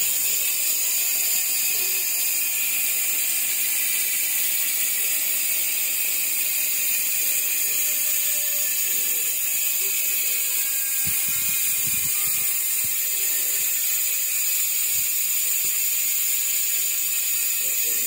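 ARC MT009 Boost rear hub freewheeling as the wheel spins, its six pawls running over a 114-tooth ratchet ring to make a steady, fine, high buzz like a bee. It is not very loud.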